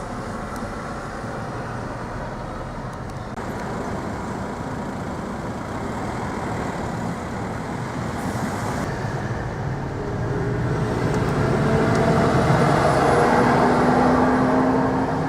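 Car driving along a road: steady tyre and engine noise, with the engine note rising slowly and growing louder in the second half as the car speeds up.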